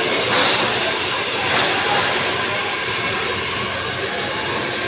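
Handheld hair dryer blowing steadily, close by, as hair is blow-dried ahead of flat-ironing in a rebonding treatment.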